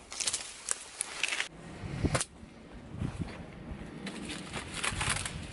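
Leaves and stems of an uprooted courgette plant rustling and crackling as the plant is carried and handled. There are bursts in the first second and a half, a sharp crack about two seconds in, and more rustling of foliage about four to five seconds in.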